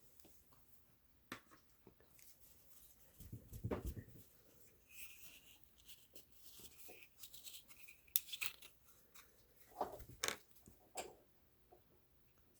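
Faint workbench handling of small parts and tools: scattered light clicks and taps, with a louder rustle about three to four seconds in and a couple of sharper clicks near the end.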